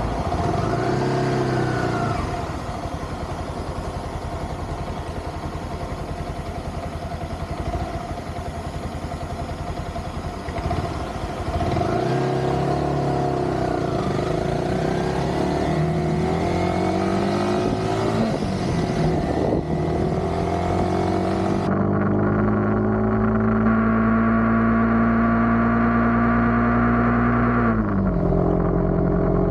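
Motorcycle engine running while riding at highway speed, over a broad rush of wind and road noise. The engine pitch rises and falls with acceleration and gear changes, holds steady for several seconds, then drops off near the end.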